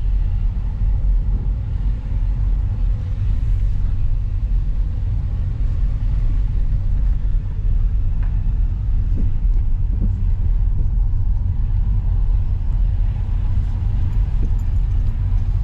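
Steady low engine and road rumble heard from inside a car's cabin while it drives slowly.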